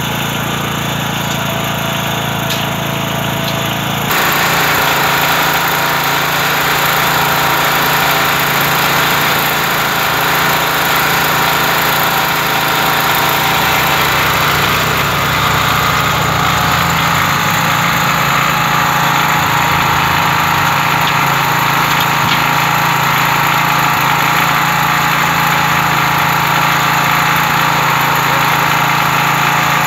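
A small engine running steadily, which gets suddenly louder and fuller about four seconds in and then keeps running.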